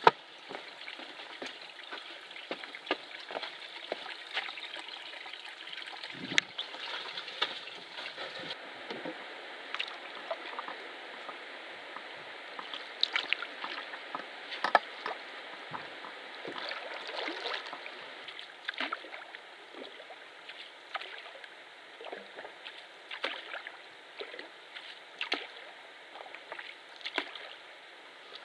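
Water trickling and lapping, with many small drips and splashes.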